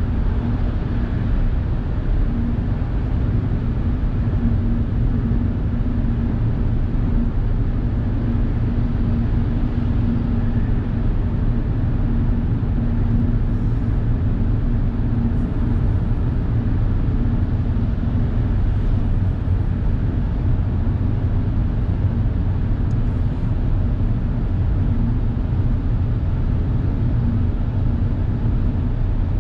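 Suzuki Hustler kei car cruising at expressway speed through a road tunnel, heard from inside the cabin: a steady road and engine noise with a constant low hum, unchanging throughout.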